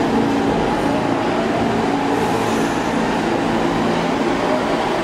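New York City subway train running, a steady, even noise with a low hum throughout.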